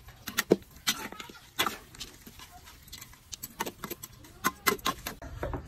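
Metal spatula clinking and scraping against a pan while stir-frying chopped duck with herbs: a run of irregular sharp clinks, some coming in quick clusters.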